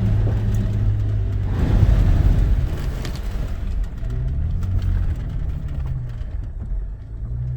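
4x4 vehicle engine running as it drives over sand, with a louder rush of noise about two seconds in. About four seconds in the engine revs up and then eases off.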